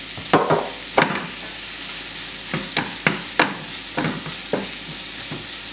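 Finely sliced leek sizzling as it fries in hot oil in a frying pan, turned with a wooden spatula that scrapes and knocks against the pan a dozen or so times.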